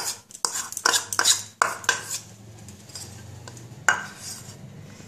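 Spoon tapping and scraping gram flour out of a plastic bowl into a steel mixing bowl: a run of quick knocks for about two seconds, then one sharp clink just before four seconds in.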